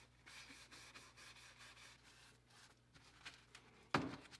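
Faint rubbing of a cloth wiping linseed oil over a carved wooden mousetrap shell, with a single soft knock about four seconds in as the wooden piece is handled.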